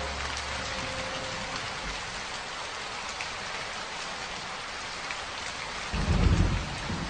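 Steady rain, an even hiss of drops falling outside, with a low rumble of thunder about six seconds in.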